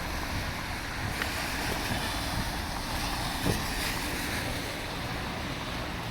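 Wind buffeting the microphone over the steady noise of city traffic on a snowy street, with a brief thump about three and a half seconds in.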